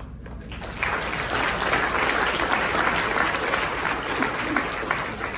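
Congregation applauding, swelling about a second in and easing off near the end.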